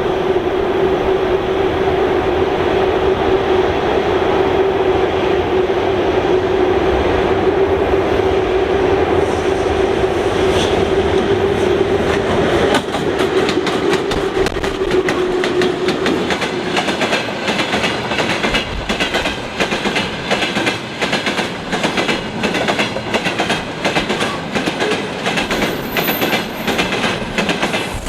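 VL11 electric locomotives passing with a steady whine, followed by the freight wagons' wheels clattering over the rail joints. The clicks come in an uneven rhythm because the axle spacing differs from wagon to wagon in a mixed train.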